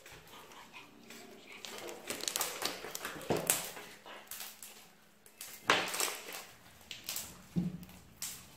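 Sticky slime being stretched and squeezed by hand, with irregular crackling, clicking pops. A few louder sharp sounds stand out, the loudest about six seconds in.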